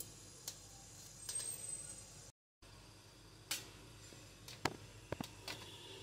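Metal spatula and tongs clinking and scraping lightly against a perforated stainless-steel steamer plate as steamed momos are lifted off, a scattering of faint sharp clicks, most of them in the second half.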